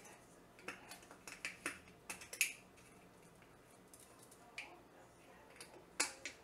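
Light clicks and taps of a spice jar and spoon as dried herbs are shaken and spooned into a small plastic bowl. The taps come in a quick cluster in the first two and a half seconds, then a few scattered ones near the end.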